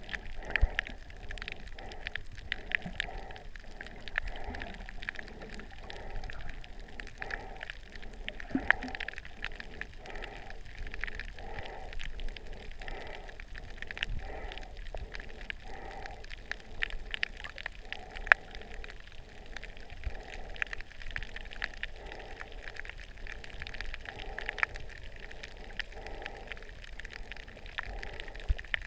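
Underwater sound taken through a camera's waterproof housing: a muffled wash of water with a soft pulsing more than once a second and scattered sharp clicks and crackles.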